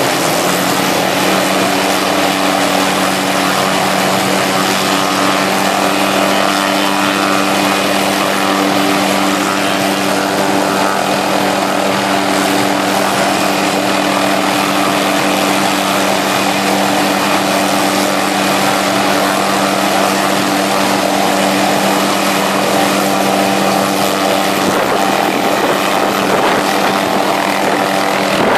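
MD 500-series light helicopter running on the ground, its turboshaft engine and spinning main rotor making a loud, steady hum that does not change in pitch.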